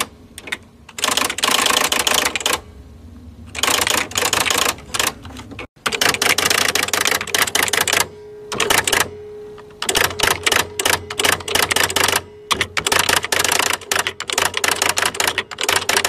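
Electric typewriter being typed on in rapid bursts of keystrokes, each burst lasting a second or more, with short pauses between them, over a steady low hum.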